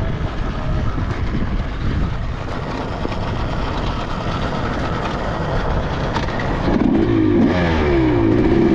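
2023 KTM 300XC two-stroke dirt bike running as it is ridden, with a steady rush of wind and road noise; in the last couple of seconds the engine note rises and falls.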